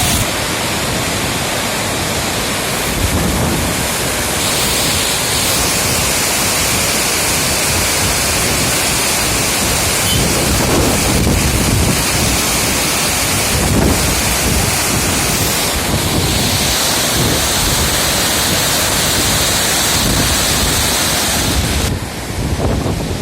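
Steady, loud rushing of water, with wind buffeting the microphone in uneven low rumbles.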